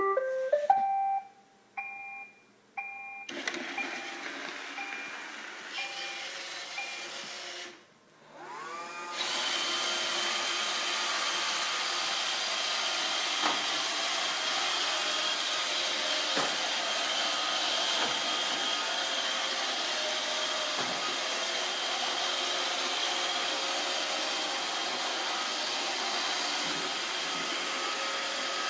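Roomba 555 robot vacuum starting up with a short tune of beeps, then running. After a brief drop its suction motor spins up with a rising whine and runs steadily, with a few faint knocks.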